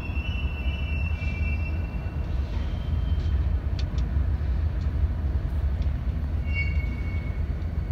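Diesel locomotives idling in a rail yard: a steady low rumble.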